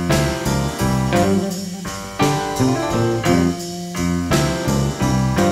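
Instrumental stretch of a blues band recording: guitar over bass and drums, with a steady beat.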